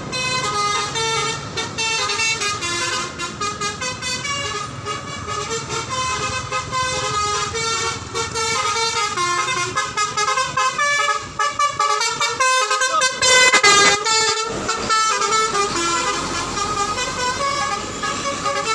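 Bus telolet horn (Basuri V3 multi-tone air horn) playing a quick melody of stepped notes, one note after another without pause, loudest about thirteen seconds in.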